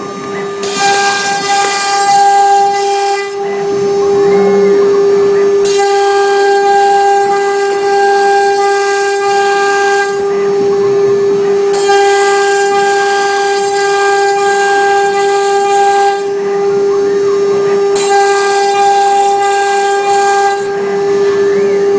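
A CNC router's 3 kW water-cooled spindle whines at one steady high pitch. About four times, a few seconds of hissing cutting noise swell over the whine as the bit engraves MDF, with short quieter gaps between the passes.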